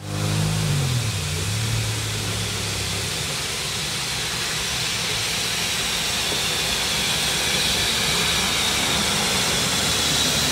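Narrow-gauge steam tank locomotive No. 823 'Countess' running into the platform with its train, hissing steam loudly and steadily, the hiss growing a little towards the end. A few low humming tones that bend in pitch sound under it for the first three seconds.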